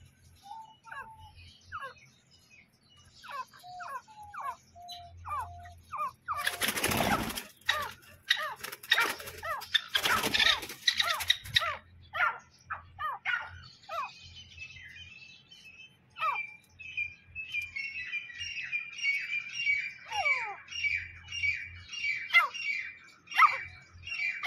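Grey francolins (teetar) calling with short, thin, falling chirps, broken by two loud bursts of wing-flapping about seven and ten seconds in; from about two-thirds of the way through the chirps come in a fast, steady run.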